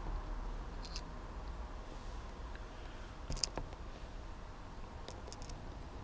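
A few faint clicks and ticks of a small precision screwdriver tip prying at the plastic housing of a motorcycle ignition switch, about a second in, around the middle and near the end, over a faint steady low rumble.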